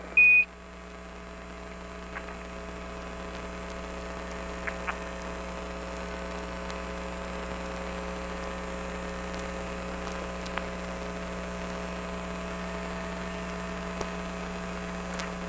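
Steady hum and hiss of the Apollo air-to-ground radio link with several steady tones, swelling over the first few seconds. Just after the start, a short beep near 2.5 kHz: a Quindar tone, marking the end of a ground transmission.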